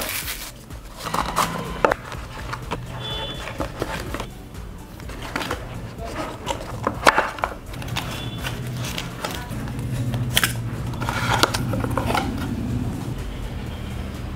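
Clear plastic wrap crinkling as it is pulled off a small cardboard box, then the box and its inner tray being slid open and handled, with repeated short rustles and taps. Background music plays underneath.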